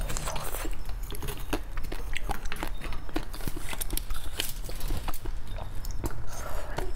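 Close-miked eating of roasted beef bone marrow: a metal spoon scraping and clicking against the inside of the bones, with wet mouth and chewing sounds as the marrow is eaten. The short clicks come irregularly, many times over.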